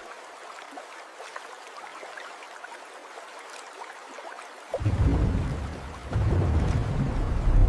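Steady rain hiss with light ticks of drops. About five seconds in, a loud, deep rumble of thunder comes in and keeps going.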